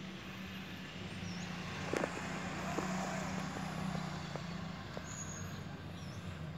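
Steady low rumble of motor-vehicle engines, with a few faint clicks between about two and five seconds in.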